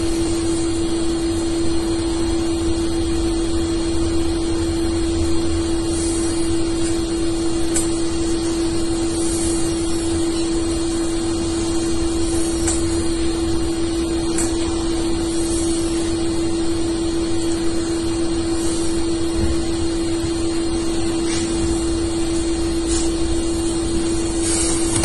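A steady, unchanging hum on a single pitch over a constant hiss, with no blast or impact heard.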